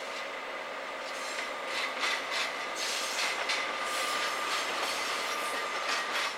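Container flat wagons rolling through a freight yard in a shunting move: a steady high wheel squeal, with irregular clacks of wheels over rail joints from about two seconds in.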